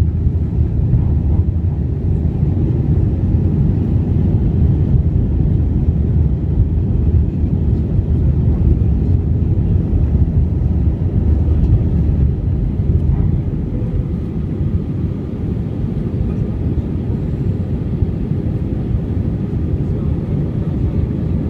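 Steady low rumble of a passenger airliner in flight, engine and airflow noise heard from inside the cabin.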